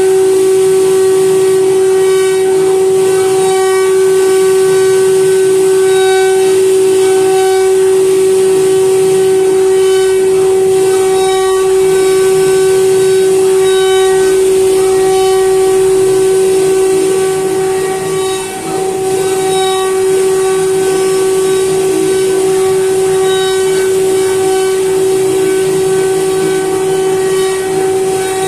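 CNC router spindle motor running at high speed with a steady high-pitched whine, its bit cutting into a wooden board with a rougher cutting noise underneath that rises and falls as the bit moves. The level dips briefly about two-thirds of the way through.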